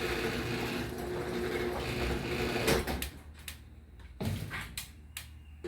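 Chain-drive garage door opener running, its freshly tightened chain moving the door, then stopping with a clunk about three seconds in. A few light clicks follow.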